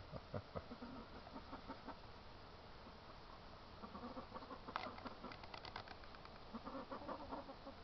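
Chickens clucking softly, in short scattered calls, with a quick run of sharp clicks about five seconds in.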